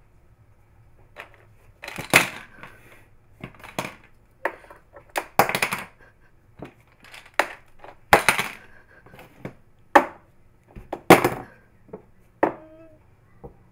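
Paper envelopes crinkling and crackling under a cat's paw: a dozen or so sharp, irregular rustles.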